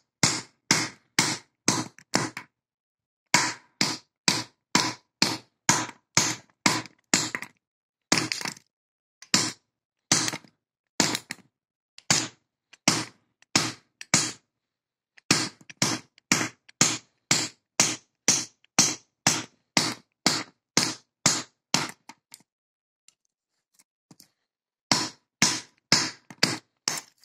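A steel wrench repeatedly striking the front of an iron padlock, sharp metallic blows about two a second in runs with short pauses and a longer gap a little before the end. This is a kinetic attack, hammering the lock to jar its locking mechanism open.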